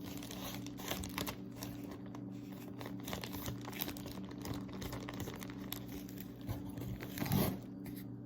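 Paper and plastic packaging crinkling and rustling as it is handled, in many short crackles, over a steady low hum. A slightly louder rustle comes about seven seconds in.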